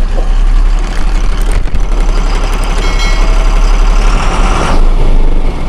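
A tractor-type diesel engine idling steadily, with a fast, even pulse.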